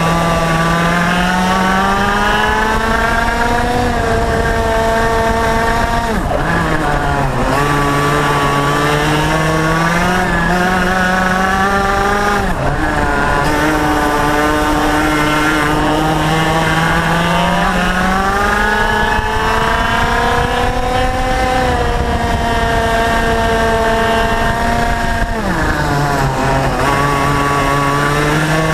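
IAME X30 125cc single-cylinder two-stroke kart engine at racing speed, heard from on board. Its pitch climbs steadily under full throttle along the straights and drops sharply three times as the driver brakes for corners, then climbs again.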